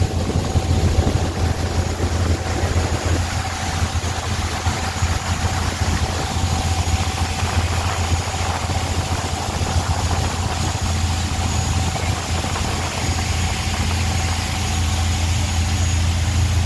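Boat engine running steadily under way: an even low drone with a faint steady whine over it.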